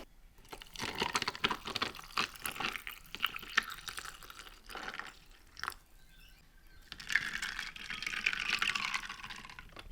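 Coffee being made: a run of small clicks and knocks from cups and utensils, then liquid pouring for a couple of seconds near the end.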